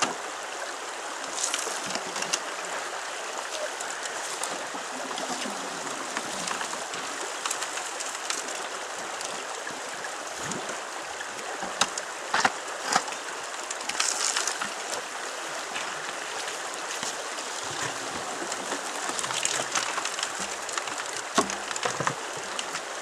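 Shallow river running steadily over rocks, broken by a few short splashes and knocks as a 3-inch PVC hand suction tube is worked in the water.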